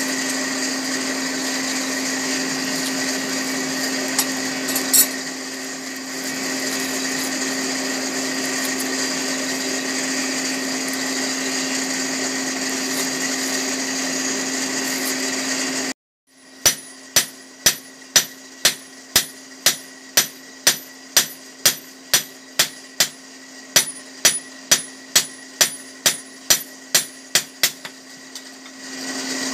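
Electric blower of a blacksmith's forge furnace whirring steadily. After a cut about halfway in, a hammer beats the red-hot edge of a fodder-chopper blade thin with sharp, ringing blows, about two a second, over the blower's hum.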